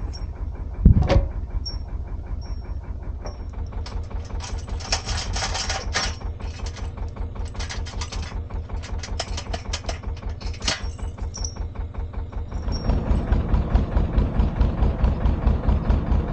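Narrowboat diesel engine idling with a steady, even chug. There is one sharp knock about a second in, and bursts of rustling and clatter in the middle. The engine gets louder from about thirteen seconds in.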